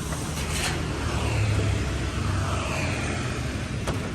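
Road traffic: a steady low engine rumble with vehicles passing, their pitch sliding down as they go by.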